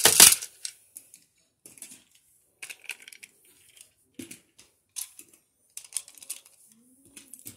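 A quick noisy zip of a Beyblade string launcher's cord being pulled, right at the start, followed by scattered light plastic clicks and taps of handling.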